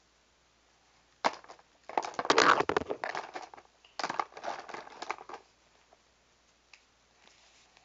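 Close rustling and scraping handling noise right at a tablet's microphone, starting with a sharp knock about a second in, then two bursts of rubbing and crackling, the louder one near the middle, and a few faint ticks near the end.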